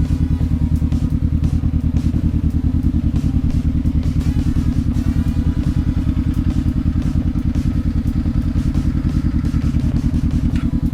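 Motorcycle engine running at a steady speed with an even, rapid pulsing beat; the pitch neither rises nor falls.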